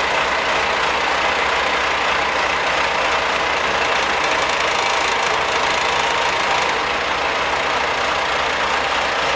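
Backhoe loader's diesel engine running steadily at a constant speed.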